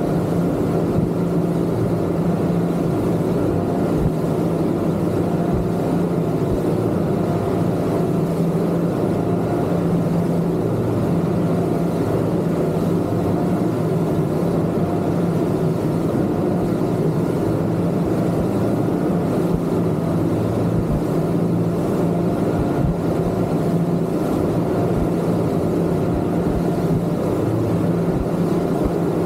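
Twin Yamaha 250 outboard motors running at a steady cruising speed, a constant engine drone with no change in pitch or level.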